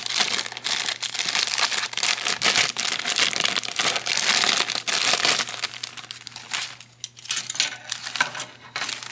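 Plastic bag crinkling and rustling as kit parts are handled and pulled out of it. The crackle is dense for the first five seconds or so, then sparser and quieter.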